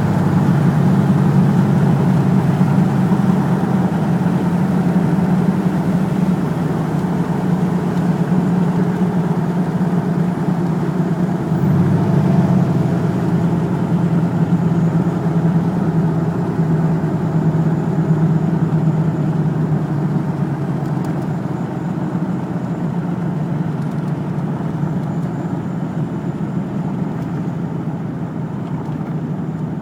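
Ford F-150 engine running steadily, with a brief change in its note about twelve seconds in; the owner has a misfire in this engine.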